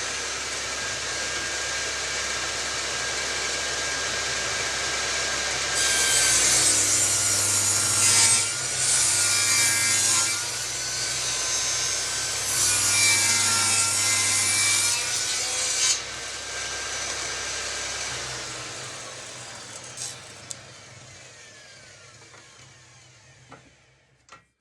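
Electric table saw running and cutting wood, the cut louder from about six seconds in to about sixteen with brief dips between passes; then it is switched off and the blade's whine falls as it winds down to a stop near the end.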